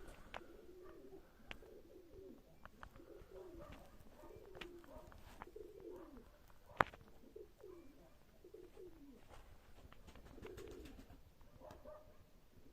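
Baku pigeons cooing: many short, low rolling coos overlapping one after another. Faint clicks are scattered among them, and one sharp click comes near the middle.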